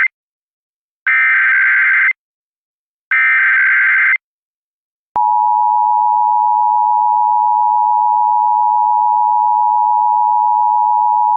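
Emergency Alert System tones. Two one-second bursts of the warbling digital SAME header code come first, then about five seconds in the steady, loud two-tone EAS attention signal starts, marking the start of an emergency alert broadcast.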